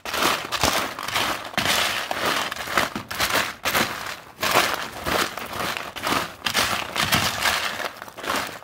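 A spoon stirring a dry snack mix of popcorn, pretzels and cereal squares in a disposable aluminium foil pan, in repeated uneven strokes. The foil crinkles and the pieces rustle and scrape against it.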